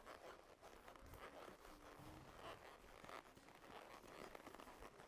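Near silence with faint, irregular crunching and rustling of a horse walking along the trail.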